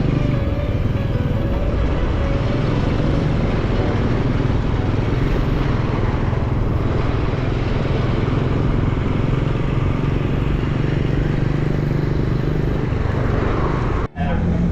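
Steady road noise of passing motor traffic mixed with wind on the microphone while cycling along a road, cut off abruptly near the end.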